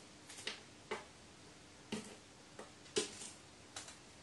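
Crow's beak pecking and picking at wallpaper at the foot of a wall: a string of sharp, irregular clicks, about two a second.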